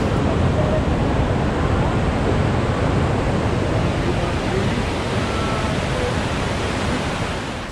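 River water rushing over rock ledges and cascades of a waterfall: a steady, loud rush that fades out near the end.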